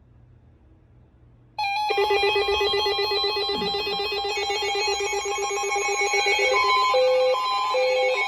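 Weather radio receivers' alert alarms going off about a second and a half in: a sudden, loud ringing made of several steady tones with a fast buzzing pulse, joined past the middle by a beep that steps back and forth between a low and a high pitch. The alarms signal an incoming weather warning.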